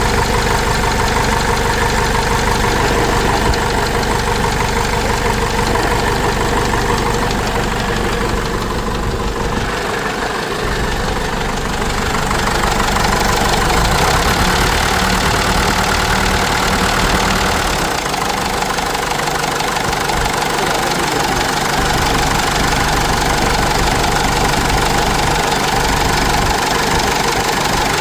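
Cummins 4BT four-cylinder diesel in a Case 586E forklift running steadily after its rebuild, during a test run to hear whether the knock is cured; its note changes briefly about ten seconds in.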